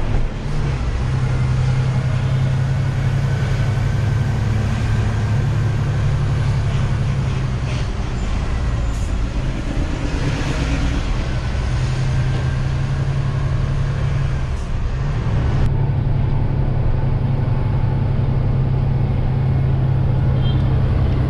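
Hino 500 diesel truck engine running while driving, heard from inside the cab with road noise. It is a steady low drone that eases off briefly a couple of times and then resumes.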